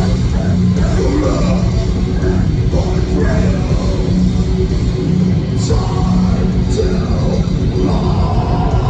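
Metalcore band playing live and loud: heavy distorted guitars, bass and drums.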